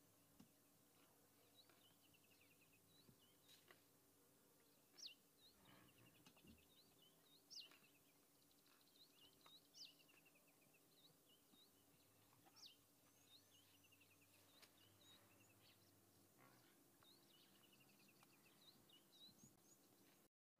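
Near silence with faint birdsong: scattered short chirps and quick trilling runs, with a few sharper, louder notes every few seconds.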